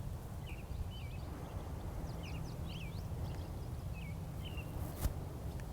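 Small birds chirping: short, quick twittering calls scattered throughout, over a low steady background rumble. A single sharp click comes about five seconds in.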